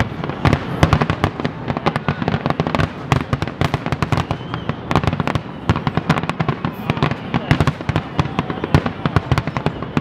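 Aerial firework shells bursting in a dense barrage, many sharp bangs and crackles a second with no let-up.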